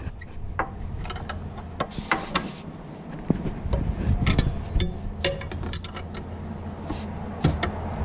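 Irregular metallic clicks and knocks of a gear wrench working a bolt, over a low steady hum. This is the lower alternator mounting bolt being loosened a couple of turns, so the alternator can be moved to tighten a loose accessory belt.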